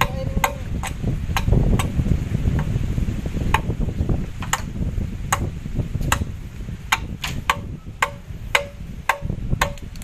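Sharp knocks struck one after another, about one to two a second, with a pause of a second or two early on. Several of them ring briefly with a clear tone. A low rumble runs underneath.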